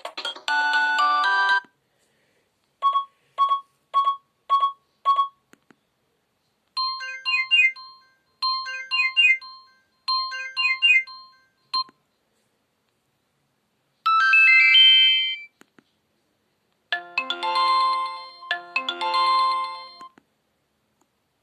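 Alcatel 20.01X phone playing its preloaded alert tones one after another. A tone ends about a second and a half in, followed by five quick beeps, a short three-note figure repeated three times, a fast rising run of notes, and a short chiming phrase of several notes at once, played twice.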